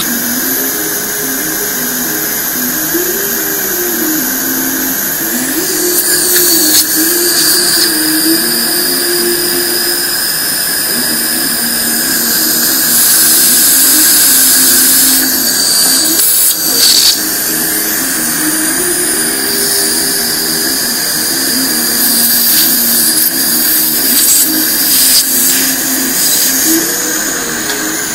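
Dental suction hissing and whining steadily, louder for a couple of seconds around the middle, with a few short clicks. A slow tune of held low notes runs underneath.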